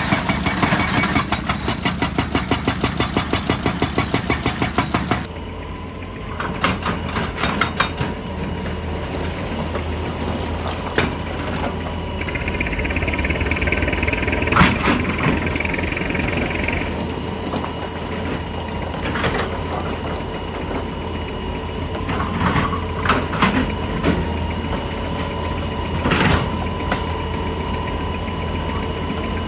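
Excavator-mounted hydraulic rock breaker hammering rapidly and evenly, stopping about five seconds in. The diesel engine keeps running after that, with scattered clanks and knocks.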